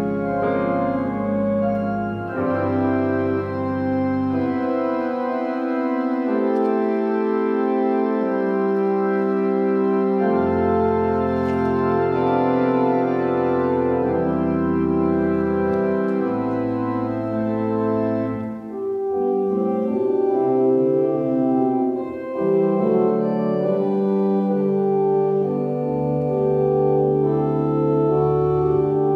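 Organ music: sustained chords over a bass line, the harmony changing every few seconds.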